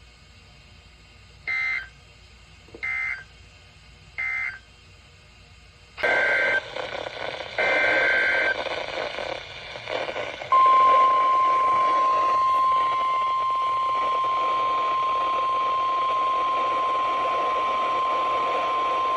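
NOAA Weather Radio alert tones: three short SAME digital data bursts (the end-of-message code closing the previous warning), then, over louder radio hiss, two longer SAME header bursts opening the next alert. About ten seconds in, the steady 1050 Hz weather-radio warning alarm tone begins and holds.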